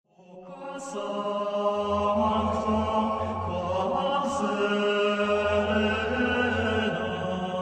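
Music fades in from silence over about a second: long held, chant-like notes over a steady deep drone.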